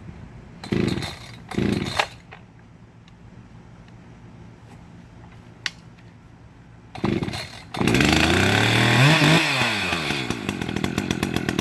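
Echo CS-590 Timberwolf two-stroke chainsaw being pull-started: two pulls of the recoil starter, a third a few seconds later, and the engine catches about eight seconds in, revs up and down, then keeps running with a rapid pulsing idle. It fires now that the stop switch has been flipped up out of the off position that had kept it from starting.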